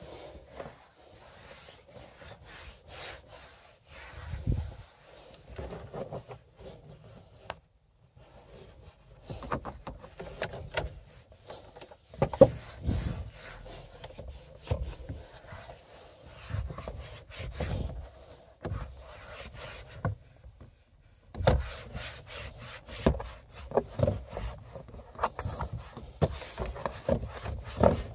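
Irregular rubbing and scuffing on the car's plastic interior, with scattered knocks. It drops away briefly about eight seconds in and again around twenty seconds.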